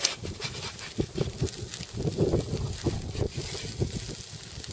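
A metal spatula clicks and scrapes against a wire grill grate as pieces of chicken are flipped over a wood-coal fire. Irregular low thumps and rumble bunch up about two seconds in.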